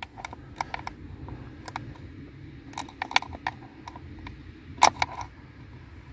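Scattered small clicks and taps of multimeter test probes and their leads being handled and pushed against the plastic connector of a car blower motor, with one louder click near five seconds in.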